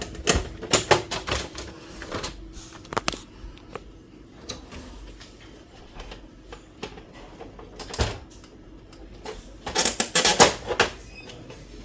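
Flat-blade screwdriver prying at the plastic casing and clips of a Brother DCP-T310 printer: scattered sharp clicks and knocks of plastic and metal, with a quick cluster of clicks about ten seconds in.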